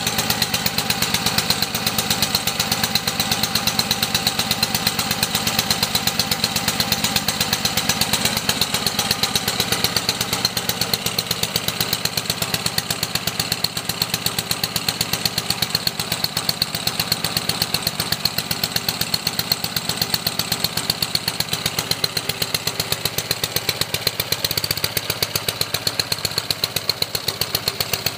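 Homelite gas pressure washer's small engine running steadily with a rapid, even pulsing, its choke still on.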